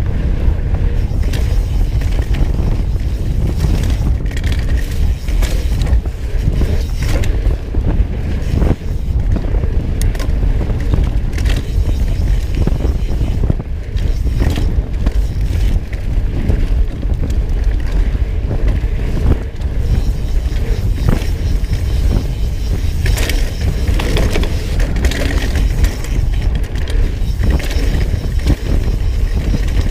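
Wind buffeting the microphone of a handlebar-mounted camera on a mountain bike, with a steady low rumble and many short knocks and rattles as the bike runs over the dirt trail.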